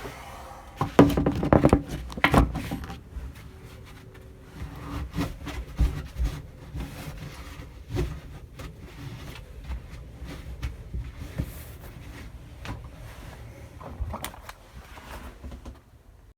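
Irregular knocking and clattering of hands and tools working on wood in a small cabin, with a cluster of loud thumps about one to two seconds in.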